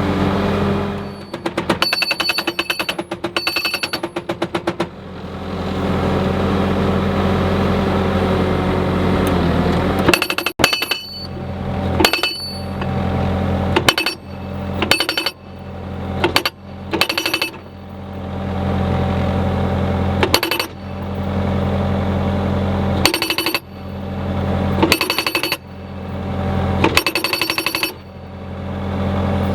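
Skid steer engine running steadily under load while a PD-550T post driver's breaker-style hammer pounds a post in rapid strings of blows. There is one longer run of a few seconds near the start, then a series of short bursts.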